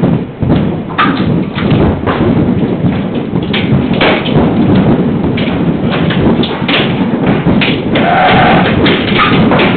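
Hail hitting the building's roof and walls: a dense, irregular clatter of hard hits over a steady roar, loud throughout.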